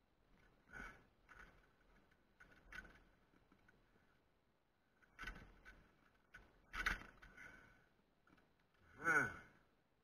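A person's heavy breathing in separate breaths a second or two apart, ending with a louder sigh that falls in pitch near the end.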